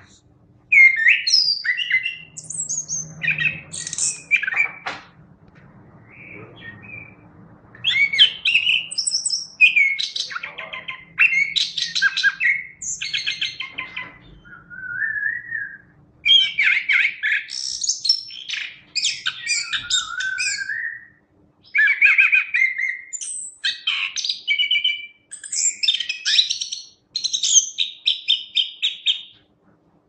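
Chestnut-capped thrush (anis kembang) singing: varied whistled phrases and fast trills in several long bursts with short pauses between.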